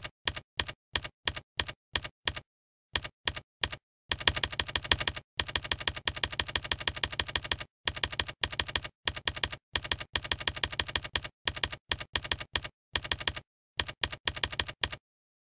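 Keyboard typing sound effect, key clicks in time with on-screen text typing out letter by letter: single keystrokes at first, then dense fast runs in the middle, then short runs with pauses, stopping shortly before the end.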